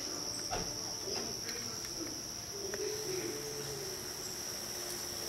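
Steady, high-pitched insect trill that runs on without a break, with faint scattered clicks beneath it.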